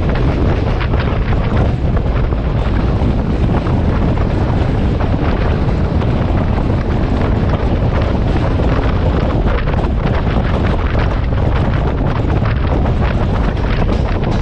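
Loud wind buffeting on the microphone held outside a moving S14 diesel multiple unit train, over the train's steady running noise on the rails.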